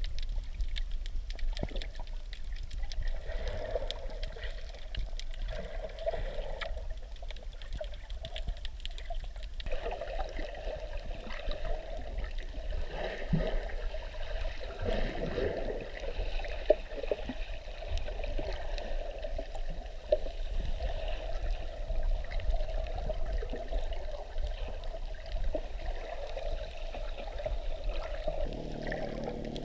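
Water sloshing and crackling around a camera held just at or under the sea surface while snorkelling, with scattered small clicks. About a second before the end a steady engine-like hum starts.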